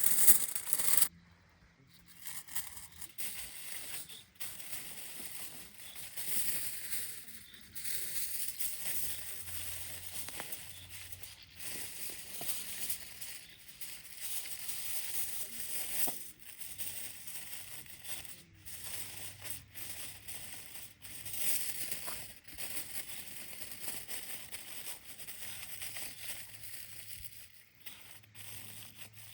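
Irregular rustling and crinkling of material being handled, with many small clicks and a louder burst in the first second.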